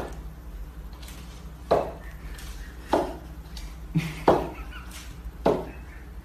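A cat jumping repeatedly and landing on a hard floor: about five dull thumps, roughly a second apart, with two close together near the middle, over a steady low hum.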